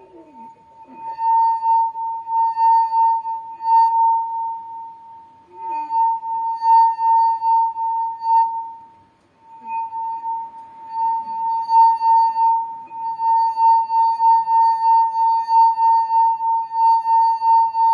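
Wine glass singing as a wet finger circles its rim: one steady ringing tone that swells and fades about two or three times a second with each pass of the finger. The tone dips briefly about five seconds in, dies away about nine seconds in, and then starts up again.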